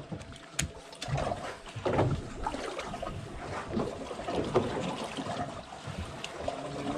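Sea water slapping and trickling against the hull of a drifting fishing boat, uneven in level, with a few sharp clicks.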